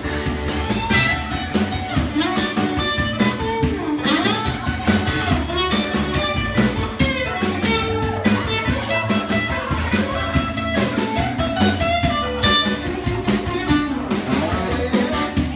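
Live band playing an instrumental stretch: electric and acoustic guitars over a drum kit keeping a steady beat, with a guitar to the fore.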